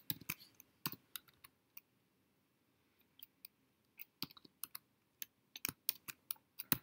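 Computer keyboard typing: scattered, irregular key clicks, with a pause of about a second and a half in the middle and quicker keystrokes near the end.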